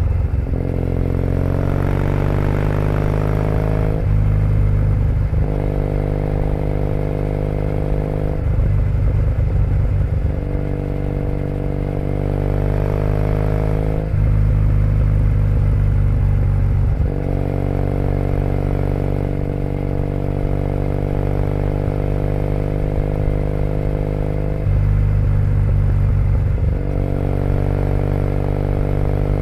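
2008 Triumph Bonneville T100's 865 cc parallel-twin engine through British Customs Predator aftermarket exhaust, under way on a ride. The engine pulls up through the revs, eases off and picks up again several times, with brief gaps about every four to ten seconds as the throttle is rolled off or a gear is changed.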